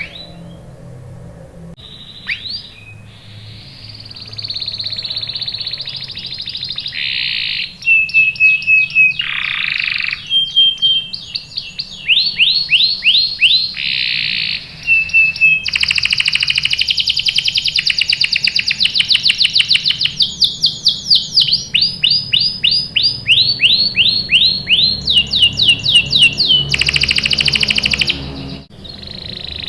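Domestic canary singing. After a few scattered chirps it goes into a long song of fast trills and rolls, each phrase a rapid string of repeated notes, with a short break near the end.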